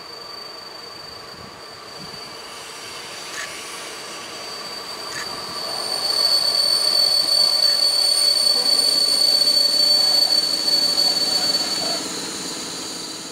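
PKP EU07 electric locomotive hauling a passenger train into the station, brakes applied. It makes a steady high-pitched squeal over the noise of the rolling wheels. The squeal grows loud about halfway through as the train draws close, and eases near the end.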